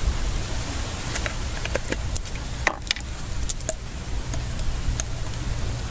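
A fork scraping and clicking against a plastic bowl while mashing egg-yolk filling with mayonnaise. A few sharp clicks fall mostly in the middle, over a steady low wind rumble on the microphone.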